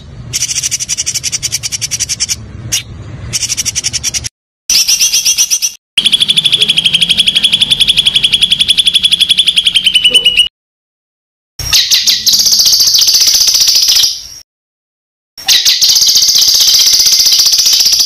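Songbird song: fast, rattling trills of rapidly repeated high notes, in separate phrases that each stop abruptly at spliced-in gaps of silence. The longest phrase, a steady trill, runs about four seconds in the middle.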